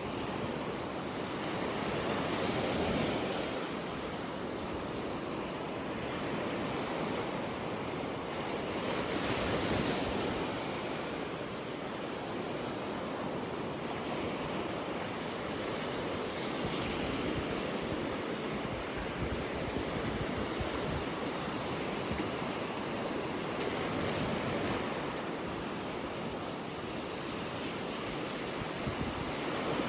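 Ocean surf breaking on a beach: a steady rushing wash that swells and eases as waves come in, loudest about three and ten seconds in.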